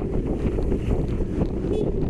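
Steady wind buffeting the microphone of a moving motorcycle, with the bike's running noise underneath.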